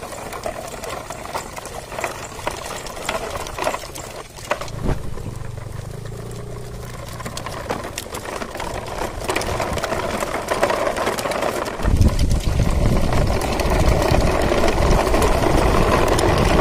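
Plastic toy truck-and-trailer train rolling over gravelly dirt, its wheels and linked trailers crackling and rattling. About twelve seconds in it turns into a louder, steady rumbling rattle as the wheels roll onto rough concrete.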